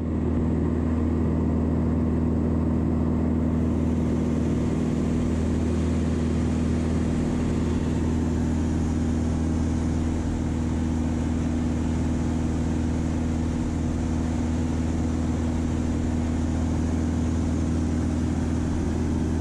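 Van's RV-7A light aircraft's piston engine and propeller droning steadily in cruise, heard from inside the cockpit, with a deep, even hum and airflow hiss.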